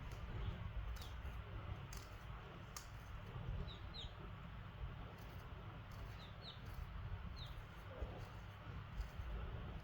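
Baby chicks peeping: scattered short, high chirps that fall in pitch, with a few sharp taps mixed in, over a steady low rumble.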